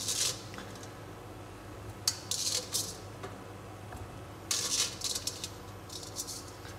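Squash slices being stirred in a stainless steel pot of water, heard as short bursts of scraping and clattering against the pot, over a steady low hum.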